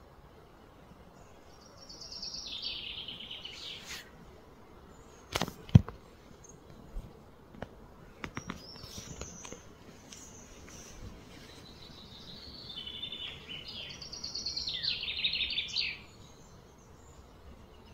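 Birds chattering in two bouts of fast repeated high notes, one about two seconds in and a longer one near the end. In between come a few sharp clicks and knocks, the loudest about six seconds in.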